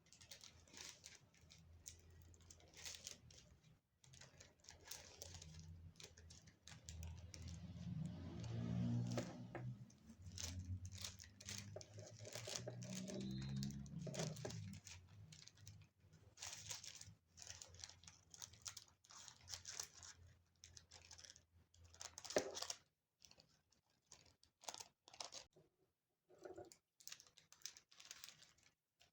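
Tissue paper rustling and crinkling in irregular short bursts as it is handled and cut by hand. A faint low hum runs under it through the middle.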